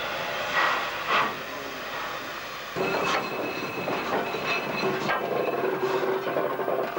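Steam locomotive 520 moving slowly at close range, with two sharp bursts in the first second or so. About three seconds in, the sound changes abruptly to a close, steady metallic running sound of its wheels and motion, carrying a faint high whine.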